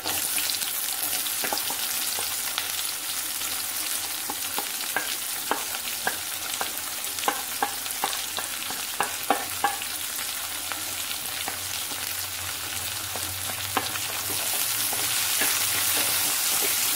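Sliced onions sizzling in hot oil in a metal kadai as they are sautéed, starting as they go into the pan. A wooden spatula stirs them with a run of sharp clicks and knocks on the pan in the middle, and the sizzling gets louder over the last few seconds.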